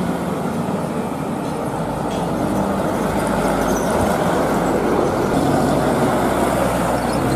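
Road traffic: light box trucks, a Hino 300 Dutro among them, driving past close by with engine rumble and tyre noise, among passing motorcycles. The rumble swells as a truck nears, about two seconds in and again after five.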